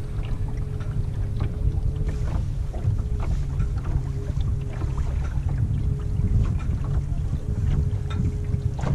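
Rumble of wind on the microphone and water splashing against a small dinghy's hull as it motors along, with a faint steady hum from a Bison 40 lb-thrust electric outboard motor.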